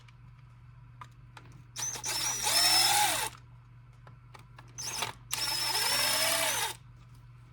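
Cordless drill-driver fitted with a small Torx bit running in short bursts to back screws out of a drill's plastic handle housing: two main runs of about a second and a half each, plus a brief blip between them, the motor's whine rising as it spins up and falling as it winds down. Small clicks of handling between the runs.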